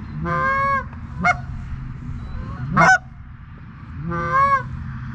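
Canada goose honks and clucks: about four loud calls spaced roughly a second apart, some drawn out and some short and sharply rising, with a breaking pitch.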